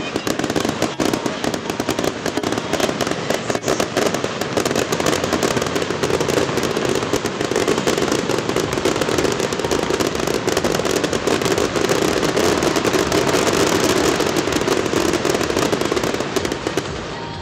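Fireworks display: a dense, unbroken run of rapid crackles and bangs from fountains, comets and shells fired over the water. It drops off near the end.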